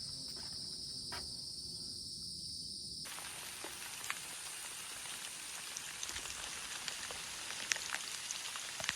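Night insects trilling in one steady high tone; about three seconds in this cuts off abruptly and is replaced by rain falling, an even hiss with scattered sharp drop ticks.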